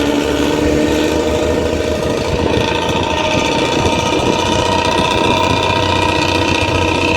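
Harapan Baru bus's Nissan diesel engine running through a gutted (bobokan) exhaust: a loud, steady growling exhaust note with high-pitched tones ringing over the low rumble.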